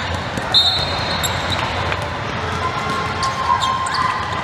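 Basketball game sounds on a hardwood court: the ball dribbling and bouncing, sneakers squeaking in short high streaks, and a steady din of voices around the gym.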